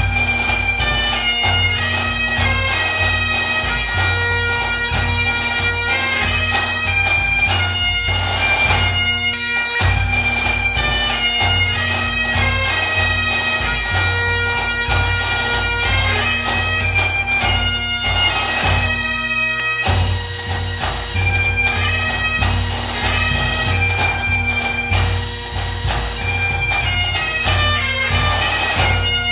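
Bagpipes playing a melody over steady, unbroken drones.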